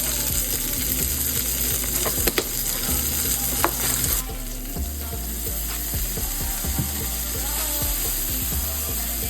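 Broccolini sizzling in butter in a frying pan, with a few scattered clicks. The sizzle drops somewhat about four seconds in.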